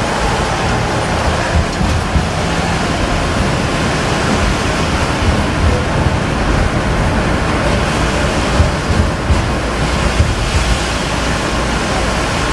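Inside a Tatra T4D tram running along the track: a steady rolling rumble of wheels on rails, with a few brief knocks.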